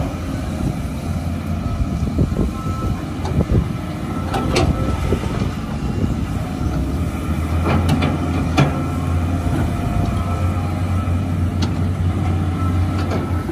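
Caterpillar 320C hydraulic excavator digging soil, its diesel engine running steadily under load. The low engine hum grows stronger about halfway through, and there are a few sharp knocks of the bucket and boom working.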